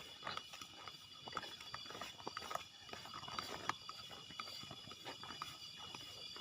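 Steady high-pitched chorus of night insects, with irregular clicks and crackles of footsteps on forest-floor litter.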